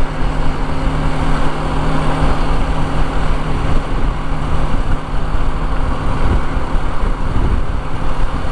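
BMW G310 GS's 313 cc single-cylinder engine running steadily while the motorcycle is under way, mixed with wind and road noise.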